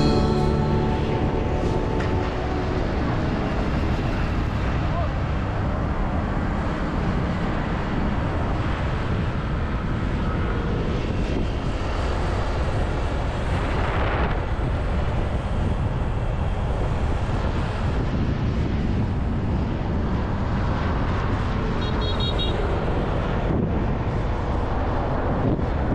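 Steady rumbling noise of a moving vehicle, road and wind noise with heavy low end, with faint voices underneath.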